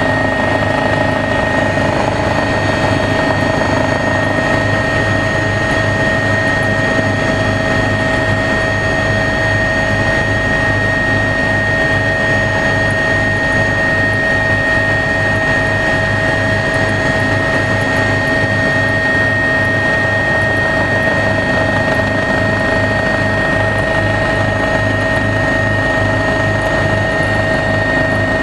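Tour helicopter in cruise flight heard from inside the cabin: a loud, steady drone of turbine engine and rotor, with constant high whining tones over a regular pulsing beat.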